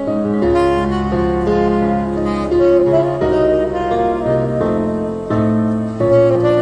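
Saxophone playing a slow, plaintive melody of long held notes over an accompaniment of piano chords and bass.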